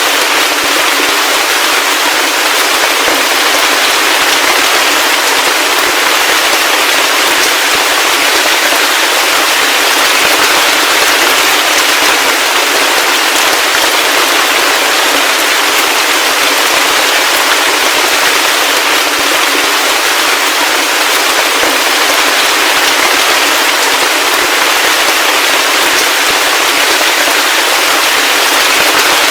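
Heavy rain falling steadily: a dense, even hiss of countless drops, with no thunder or low rumble.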